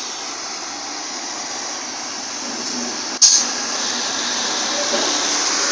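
Steady rushing and rumbling of a passenger train in motion, heard from on board, slowly growing a little louder, with one sharp knock about three seconds in.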